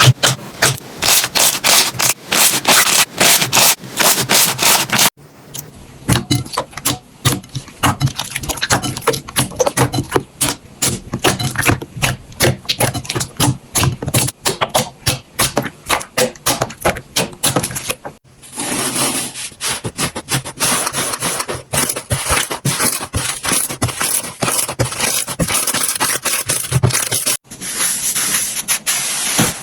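Slime being squeezed, pressed and poked by hand: dense sticky crackling and popping clicks. The sound changes abruptly about 5, 18 and 27 seconds in, as one short clip gives way to the next.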